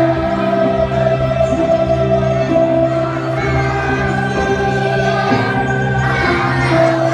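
Music: a slow song with long held, choir-like notes that change every second or two.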